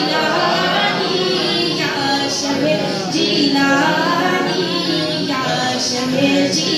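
A woman singing an Urdu manqabat, a devotional song in praise of a saint, into a microphone, drawing out long, wavering held notes.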